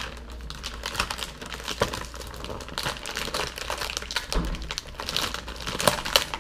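Plastic Oreo cookie wrapper crinkling in a run of quick crackles as it is handled and pulled open.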